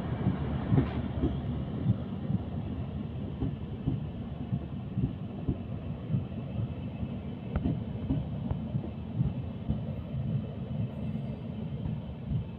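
Passenger train coaches rolling slowly past on the rails: a steady low rumble with irregular clunks from the wheels.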